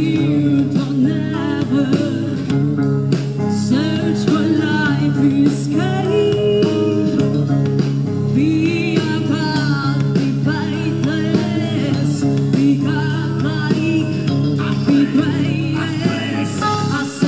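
Live rock band playing a song: electric guitars and a singing voice over a dense, steady band sound.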